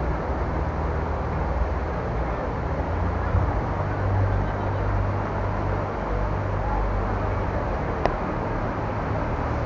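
Steady street ambience: road traffic running past with a low engine drone, and a crowd talking in the background. A single sharp click about eight seconds in.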